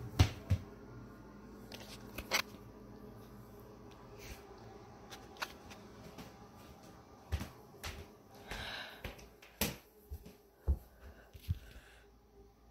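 Scattered sharp clicks and knocks in a small, quiet room, the loudest right at the start, with a brief hiss a little past the middle.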